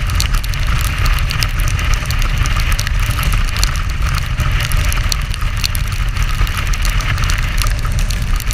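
Motorcycle riding at speed on a wet road in the rain: a steady low rumble of engine and riding noise, with many small ticks of raindrops striking the camera.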